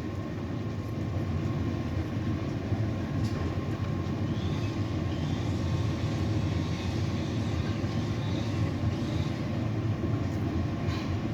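A steady, low mechanical rumble with a faint steady hum above it and no distinct events.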